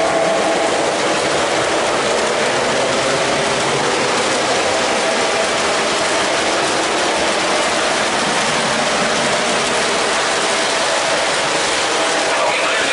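Lionel O gauge model train running on three-rail track: a LionChief Plus RS-3 diesel locomotive and 1952 aluminum passenger cars pass with a steady mechanical whirring and clatter of motor and wheels.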